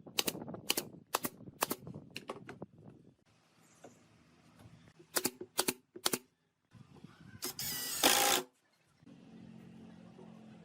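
Sharp strikes in woodworking, a quick run of about eight and then three more, followed by a loud burst of noise about a second long.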